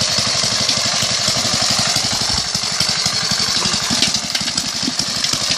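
Small engine running steadily with an even, rapid beat.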